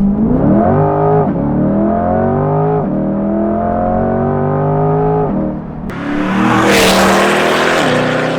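2020 Chevrolet C8 Corvette's 6.2-litre V8 wailing at full throttle from a standstill, with the tires spinning on a cold road. Its pitch climbs and drops back with each quick dual-clutch upshift, several times. About six seconds in, a loud rushing noise rises over the engine and stays to the end.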